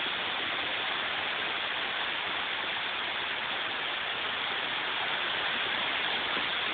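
Heavy storm rain falling steadily in a dense, unbroken hiss.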